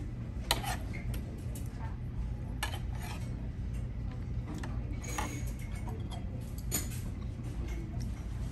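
Cutlery and dishes clinking, a few sharp separate clinks over a steady low hum of room noise.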